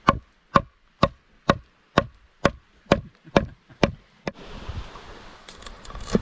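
A blade chopping in a steady rhythm of about two strikes a second, ten strikes in all, stopping about four seconds in. Softer rustling and scraping follows.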